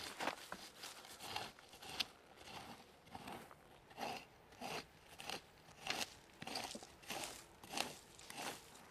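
A hand circle hoe's ring-shaped blade scraping and crunching through dry soil in repeated short strokes, about one or two a second.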